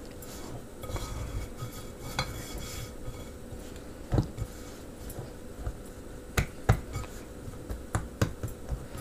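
Hands kneading and turning a ball of floured bread dough in a ceramic bowl: soft rubbing, with a few sharp knocks and clinks against the bowl, most of them in the second half.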